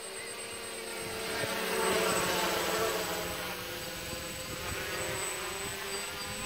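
DJI F450 Flame Wheel quadcopter in flight, its four propellers buzzing in a whine whose pitch wavers as the motors adjust. It grows louder to a peak about two seconds in as the drone passes close, then eases off a little.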